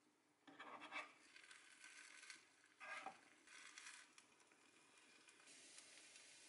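Spatula scraping and pushing a rolled omelette across a square nonstick tamagoyaki pan, in a few short scrapes. Beaten egg poured into the hot pan near the end sets off a steady faint sizzle.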